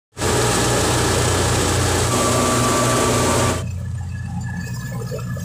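Tractor-driven threshing machine, powered by an old Fiat 480 tractor, running as crop stalks are fed in: a loud steady rushing noise over a low engine hum. About three and a half seconds in the sound drops abruptly to a quieter level of the machinery running.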